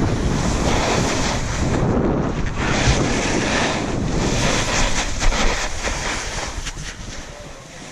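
Wind rushing over the microphone of an action camera moving down a ski slope, mixed with snow hissing under the rider, with a few sharp clicks. It eases off near the end as the rider slows.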